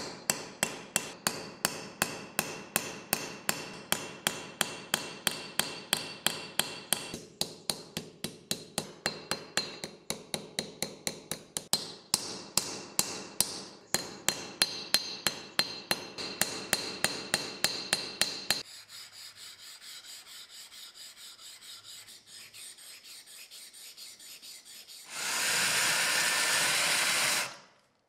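A small hammer peening copper pins in a brass knife handle scale on a steel vise anvil: rapid ringing metal taps, about three a second. They give way to softer, lighter taps a little past halfway. Near the end comes a loud hiss of noise lasting about two seconds.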